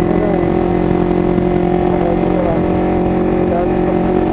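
Kawasaki Ninja 250FI's parallel-twin engine running at a steady engine speed while the motorcycle is ridden, heard from the rider's seat.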